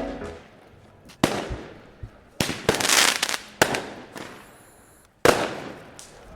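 Firecrackers going off: about half a dozen sharp bangs at uneven gaps, with a short burst of crackling about three seconds in. Each bang echoes briefly.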